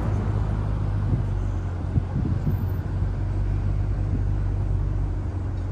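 Ferrari engine running at a steady low speed, a low, even hum that neither rises nor falls.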